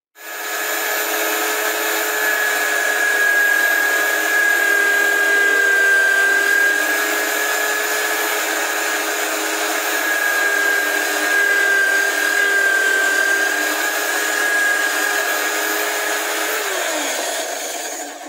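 Drill press motor running steadily with a constant whine while the bit bores into a plywood block. Near the end the motor is switched off and its pitch falls as it spins down.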